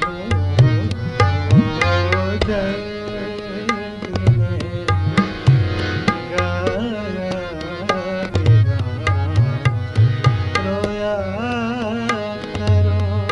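Live ghazal music: tabla playing a steady rhythm, with deep bass-drum strokes, under sustained melodic lines that bend and waver in pitch.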